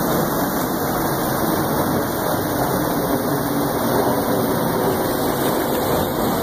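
Steady rush of a small mountain creek running over rocks into a pool, an even, unbroken noise.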